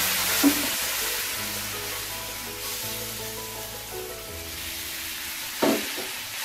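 Semolina roasted in hot ghee sizzling and hissing as water is poured in and stirred with a wooden spatula; the hiss is strongest at first and slowly dies down. Two short knocks, about half a second in and near the end.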